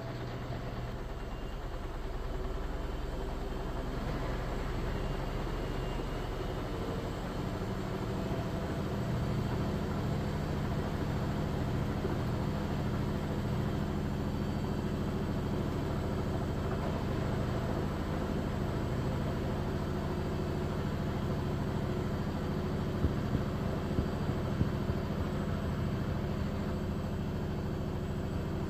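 Haier HLC1700AXS washer/dryer combo in its final spin with an unbalanced load: a steady mechanical hum from the spinning drum and motor, growing louder a couple of seconds in, with a few sharp knocks near the end.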